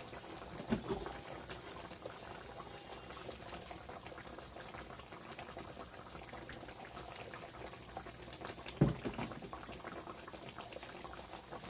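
Steaks simmering in gravy in a skillet: a steady bubbling with fine crackles, while cooking oil is poured into a second pan of onions and flour. A soft knock about a second in and a sharper knock about three quarters of the way through.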